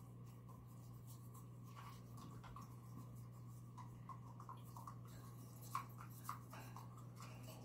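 Faint scratchy scraping and clicking of a toothbrush on a German shepherd's teeth as the dog bites on the brush, with two slightly louder clicks about six seconds in. A steady low electrical hum runs underneath.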